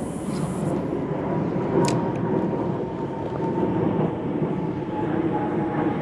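Steady rumble of a passing vehicle with a faint high whine running through it, and one short click about two seconds in.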